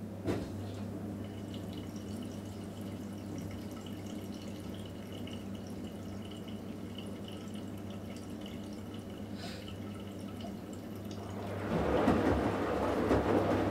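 Electrolux EWF 16589 W front-loading washing machine in its wash phase: water dripping and trickling in the drum over a steady low hum, then near the end the drum starts turning again and the wet laundry sloshes and tumbles, much louder.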